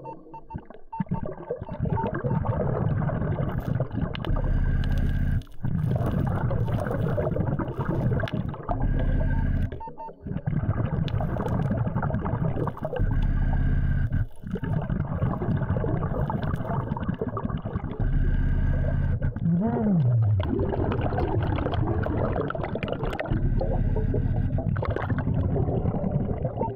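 Muffled underwater sound from a diving camera: a steady low rumble and hum, broken by several short cuts between clips, with one short falling tone about twenty seconds in.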